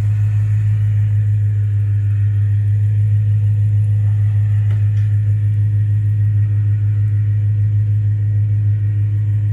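BMW E9X M3's S65 V8 idling steadily, heard close to the exhaust with a fast even pulse. The header-to-midpipe joints are being checked by hand for an exhaust leak after new gaskets, and at least one side shows none.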